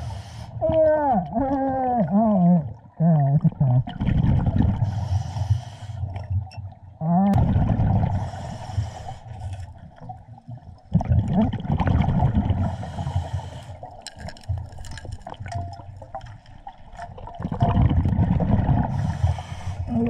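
Scuba diver breathing underwater through a regulator: a breath every three to four seconds, each with a hiss of the demand valve and a rumbling burst of exhaled bubbles. Wavering, rising and falling tones come through in the first few seconds.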